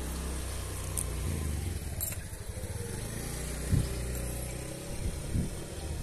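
A motor vehicle's engine running with a steady low hum, which fades out about five seconds in.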